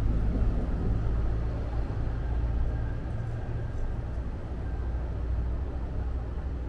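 Steady low rumble of a 1200-type tram creeping along street track beside idling cars, with a faint thin whine in the middle.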